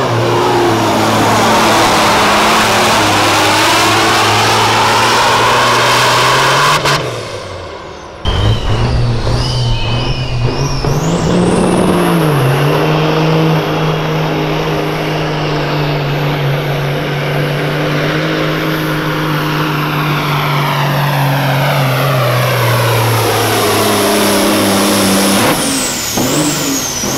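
Semi truck diesel engines under full load pulling a weight-transfer sled, one pull after another. The first truck's engine holds a steady note and cuts off about seven seconds in. A second truck's engine comes in about a second later, climbs briefly, holds steady, and drops back near the end.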